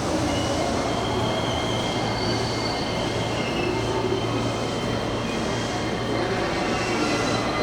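Electric train moving slowly along the platform: steady running noise with a low hum, and thin high squeals from the wheels on the rails coming and going.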